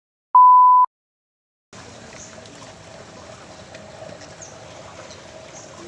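A loud, steady electronic beep of a single pitch lasting about half a second, then silence. From nearly two seconds in comes faint outdoor sound of water sloshing in a fishpond as people wade through it with a net, under a faint steady hum.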